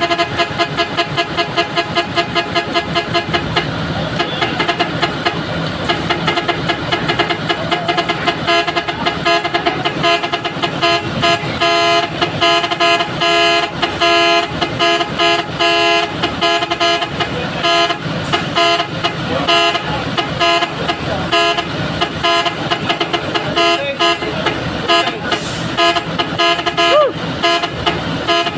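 A loud horn sounding in rapid repeated pulses at a steady pitch, several tones at once, sounded over and over.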